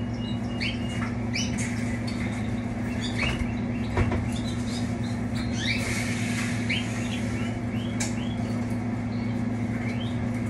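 Caged canaries chirping, many short calls one after another, over a steady low hum. There are a couple of sharp clicks, one near the middle and one later.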